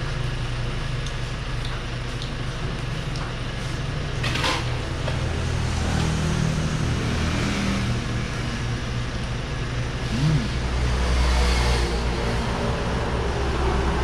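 A motor vehicle's engine running steadily under an even rush of road noise, getting somewhat louder about ten seconds in.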